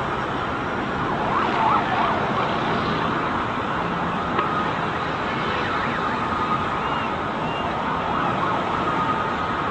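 Emergency-vehicle sirens wailing, their pitch rising and falling about a second in and again later, over a steady wash of city street noise.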